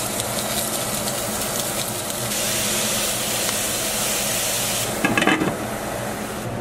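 Sausage links sizzling in a nonstick frying pan, a steady hiss. About five seconds in there is a brief clatter as a glass lid goes onto the pan.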